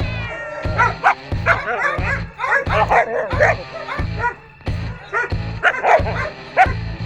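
West Siberian laika barking and yelping over and over in quick, high-pitched calls, with background music underneath.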